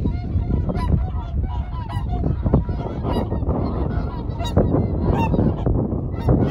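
A flock of whooper swans calling in flight: many short honking calls, several a second and overlapping, over a steady low rumble.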